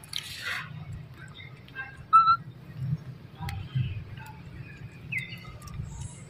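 Scattered short, high animal chirps and squeaks, one falling in pitch about five seconds in, over a steady low rumble, with a brief rustle at the start.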